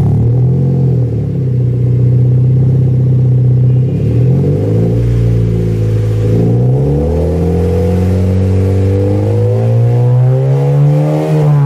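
Honda City Aspire 1.5 i-VTEC four-cylinder engine being revved through an HKS straight-pipe exhaust. The revs rise and fall several times and are held between blips. Near the end they climb slowly to a peak.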